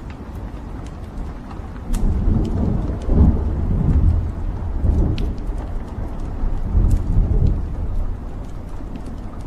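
Wood fire burning in a fireplace: a low rumble of flames that swells about two seconds in and again near the seven-second mark, with sharp crackles and pops from the burning logs.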